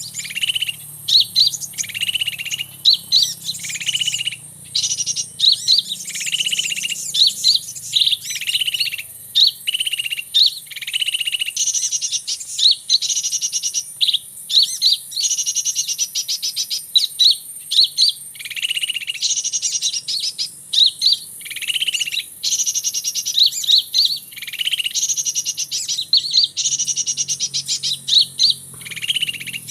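Small birds, sunbirds, calling without a break: a short lower note followed by quick high chirps, the pattern repeating about every second to second and a half.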